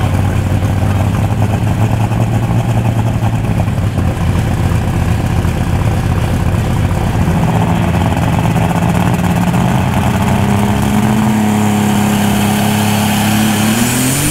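Unlimited super stock pulling tractor's engine running loud and steady. Its pitch climbs slowly through the second half and rises sharply near the end.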